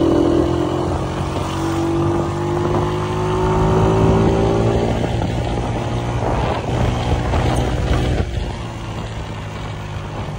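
Honda CG 125's single-cylinder four-stroke engine running under way through a Goshi aftermarket silencer, its pitch rising slowly over the first five seconds. About eight seconds in the note drops and the exhaust turns quieter as the throttle eases.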